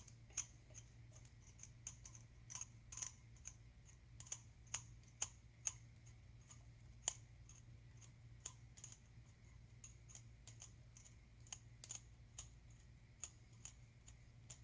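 Ratcheting socket wrench clicking in irregular short runs, driving an engine bolt with a 12-point socket. A faint steady low hum runs underneath.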